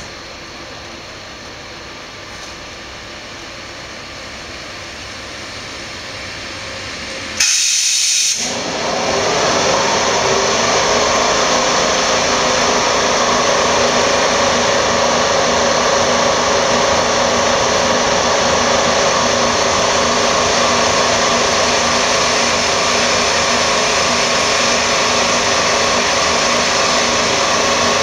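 A passenger train hauled by an electric locomotive pulling into the station. The rolling noise grows as it approaches, then jumps suddenly about seven seconds in to a loud, steady hiss and hum as the coaches roll past close by.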